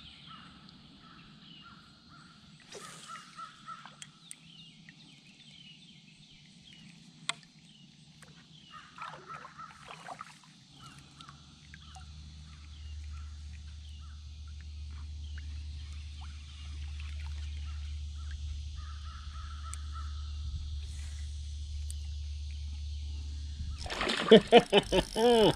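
Crows cawing in repeated short runs over a steady high background chorus, with a low steady rumble coming in about halfway. A person's voice, loudest of all, breaks in near the end.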